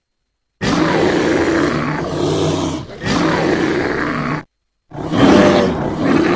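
Dragon roar sound effects: a long, rough roar that breaks briefly near the middle, then after a short silence a second roar.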